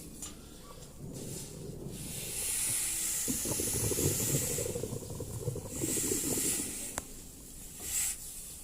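Hissing in two long bursts and a short one near the end, over a steady low rumble, with a single click partway through.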